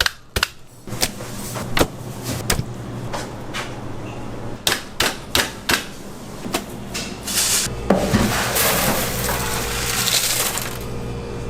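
Sharp, irregular knocks, a few each second, for about six seconds. From about eight seconds in a loud steady hiss takes over. A low hum runs underneath.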